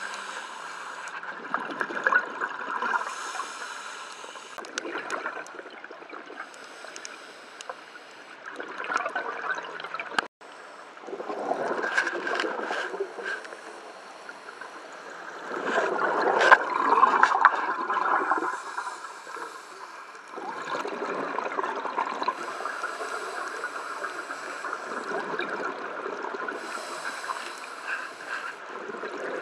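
Scuba diver's exhaled bubbles gurgling past an underwater camera, coming in bursts every few seconds with each breath out from the regulator.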